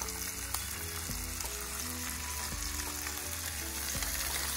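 Korean-style beef short ribs (galbi) sizzling steadily in an electric grill pan, with background music underneath.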